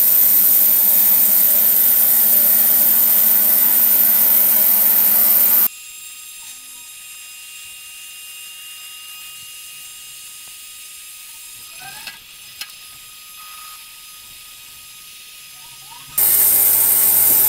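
Ultrasonic cleaner running a cleaning cycle in its water-and-shampoo tank, giving a loud, steady buzzing hiss. About a third of the way through it drops abruptly to a much quieter steady hum, and the loud buzz returns shortly before the end.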